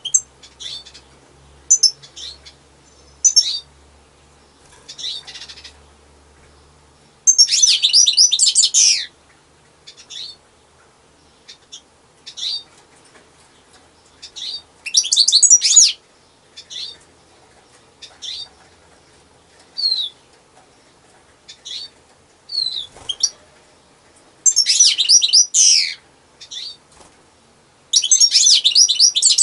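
European goldfinch singing: short high call notes scattered throughout, broken four times by a second or two of rapid, tumbling twittering song.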